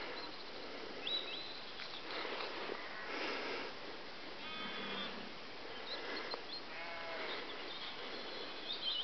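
A lamb bleating twice, two short calls about two seconds apart, over a steady rustling hiss. Two brief high chirps come near the start and near the end.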